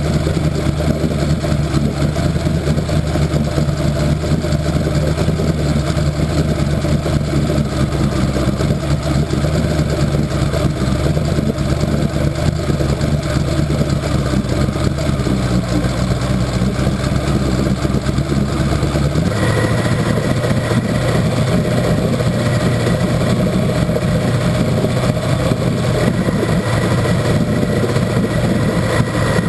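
1964 Evinrude Starflite V4 two-stroke outboard running steadily in a barrel of water, its lower unit churning the water. About two-thirds of the way through, the engine note changes abruptly and then holds steady again.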